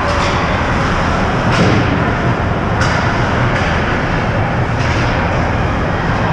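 Ice hockey rink ambience during play: a steady wash of arena noise, with a few short sharp scrapes or knocks from skates, sticks or puck about a second and a half, three and five seconds in.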